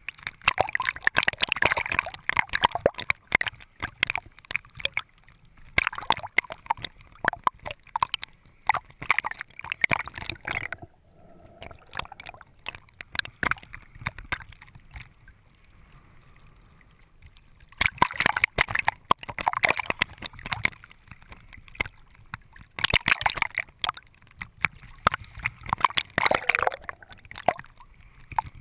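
Water sloshing and splashing against a GoPro camera housing held at the surface while swimming, coming in crackling bursts of a few seconds with a quieter stretch in the middle.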